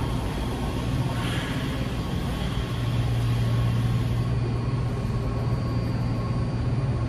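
Washington Metro 7000-series train standing at the platform, its onboard equipment giving a steady low hum over a constant rush of noise.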